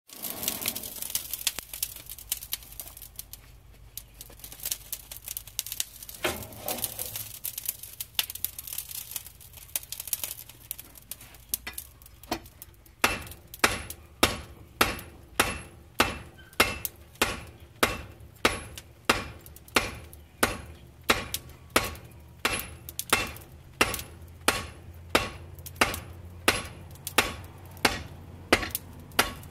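Hand hammer striking hot steel on a steel anvil. After some scattered clinks and knocks, regular hammer blows start about 13 seconds in at about two a second, each with a bright ringing from the anvil. A low steady hum runs underneath.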